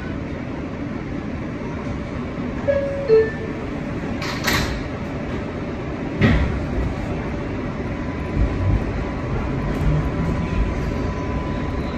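Inside an R142A subway car: a two-note falling door chime, the sliding doors shutting with a knock, then the train starting off, its low rumble and motor hum building.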